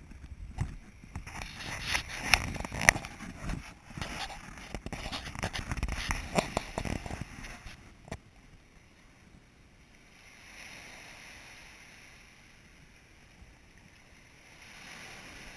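Small waves washing up a shallow shore right at the microphone, with crackling splashes and knocks for the first eight seconds. After that come two softer washes of surf.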